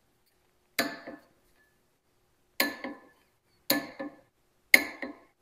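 Torque wrench on the sprocket ring's bolts, being torqued to 50 foot-pounds: four sharp metallic clicks, each with a short rattle. The first comes about a second in, and the others follow roughly a second apart.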